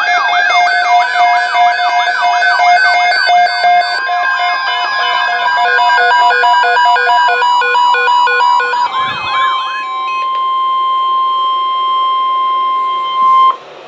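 A fast electronic wailing siren, sweeping up and down about twice a second, layered with stepped electronic tones; these stop about ten seconds in. Under them, and then alone, the NOAA Weather Radio 1050 Hz warning alarm tone holds one steady pitch and cuts off suddenly near the end, the signal that an alert message follows.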